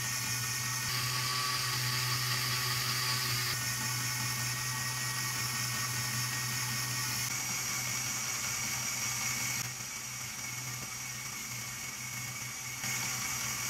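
Lego Technic electric motor driving the timer's gear train, a steady whirring with gear noise. Its level and pitch shift abruptly several times.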